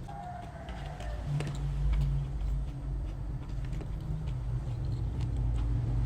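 Light clicks and taps of chopsticks and tableware against dishes while eating, scattered and irregular over a low steady hum.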